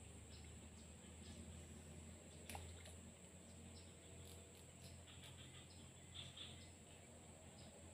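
Near silence: faint outdoor background with short, high chirps about once a second over a steady high whine and low hum, and one soft click about two and a half seconds in.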